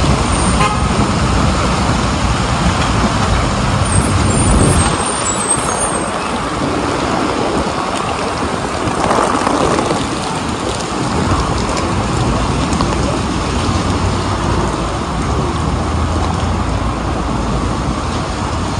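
Heavy rain falling on a city street, mixed with the steady noise of road traffic on wet pavement.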